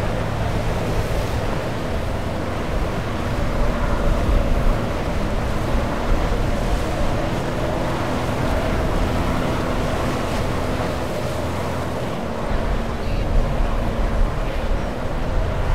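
Surf breaking and washing around jetty rocks and the hull of a stranded outboard-powered catamaran, swelling about four seconds in and again near the end, with wind on the microphone. Under it runs a steady low hum of the boat's outboard engines.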